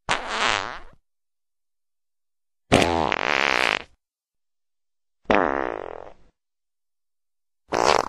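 Fart sound effects played one after another: four separate farts, each about a second long and wavering in pitch, with clean silent gaps of about a second and a half between them.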